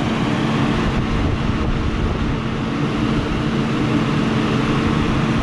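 Belt-driven rooftop exhaust fan running steadily on a freshly tightened V-belt: a constant motor hum over the rush of moving air.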